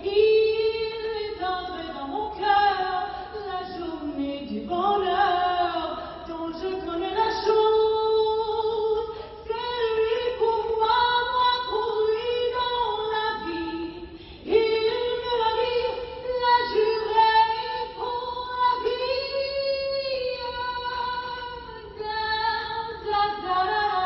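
A single female voice singing unaccompanied, holding long notes in a fairly high register with short breaks between phrases.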